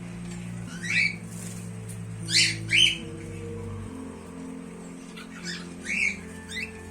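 Cockatiel giving about six short, sharp calls, the loudest near the first and third seconds, over background music with held low notes.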